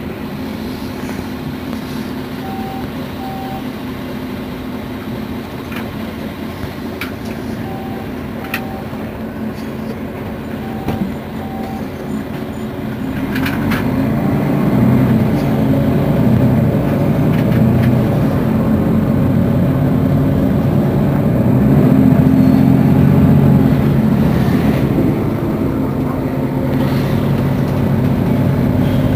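Mercedes-Benz Citaro facelift city bus's diesel engine running steadily, with three pairs of short beeps in the first half. About halfway through the engine grows louder and stays louder.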